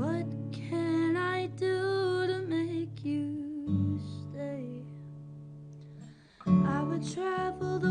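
Strummed acoustic guitar with a woman singing a long, wavering melody. About two-thirds of the way through the music thins out almost to a pause, then guitar and voice come back in together.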